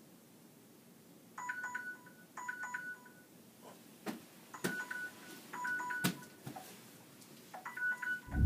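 Phone alarm going off: short groups of two-pitch electronic beeps that start about a second and a half in and repeat roughly once a second, with a few soft knocks in between.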